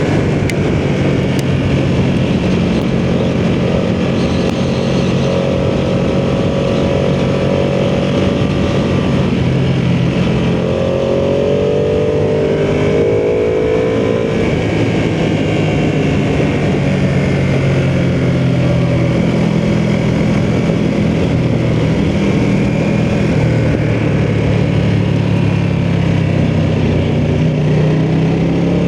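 Ducati sportbike engine running under way with wind rush, its note shifting with the throttle: the pitch changes about ten seconds in and climbs near the end.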